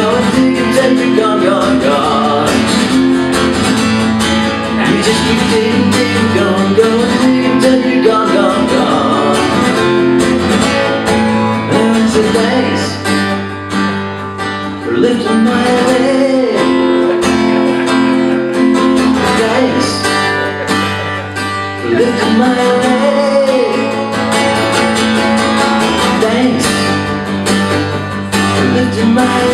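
A song played live: a strummed guitar with a voice singing a bending melody over it.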